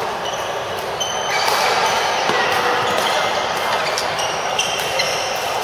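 Badminton rally in a big sports hall: sharp racket hits on the shuttlecock and brief high squeaks of court shoes on the floor, over a steady din of play on the surrounding courts.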